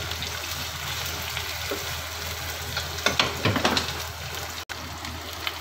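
Diced carrot, green capsicum and potato sizzling in ghee in a nonstick pan, stirred with a spatula, with a cluster of scrapes and clicks about three seconds in as the spatula works through the pan. The sound cuts out for an instant shortly before the end.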